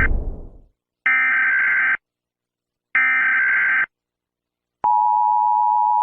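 Emergency Alert System tones: two bursts of the warbling digital SAME header data, about a second each, followed about five seconds in by the long, steady EAS attention tone. At the very start, the tail of a loud crash dies away.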